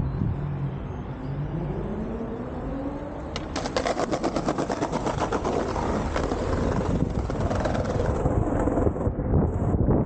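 A road vehicle's engine rising in pitch as it accelerates past, followed by a dense, rapid crackling rattle for several seconds.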